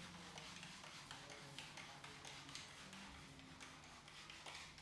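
Faint, irregular light taps and clicks, a few a second, from hands working over the scalp and hair during an Indian head massage.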